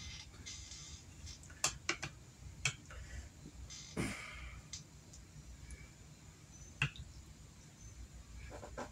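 Quiet handling sounds of hands working raw chicken thighs in a cast-iron pan, pushing butter and garlic under the skin: a handful of sharp clicks and taps over a low hum.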